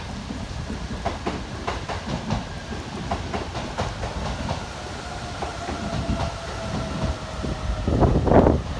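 Takasaki Line electric train running past, its wheels clacking over rail joints under a continuous rumble, with a faint steady whine. The sound swells louder about eight seconds in.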